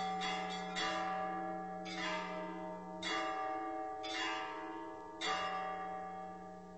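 Church bells ringing, struck about once a second over a deep humming tone; the last strike falls about five seconds in and the ringing fades away.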